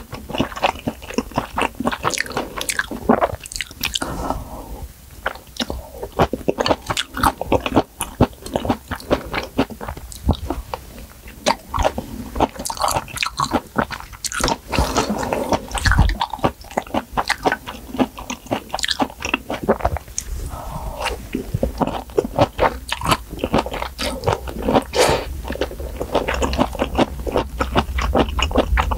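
Close-miked chewing and biting of a mouthful of malatang, wet mouth clicks and soft crunches coming quickly and unevenly.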